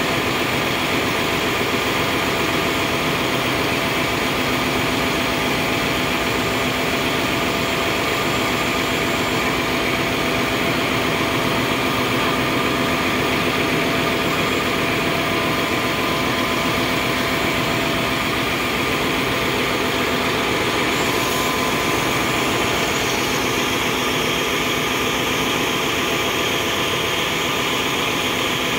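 Steady, loud drone of a ship's engine-room machinery running, with several constant hums over a dense mechanical noise. The high hiss shifts about two-thirds of the way through.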